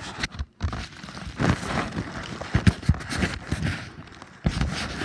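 Handling noise: a phone's microphone rubbing and bumping against clothing and a hand, an irregular run of scrapes and knocks.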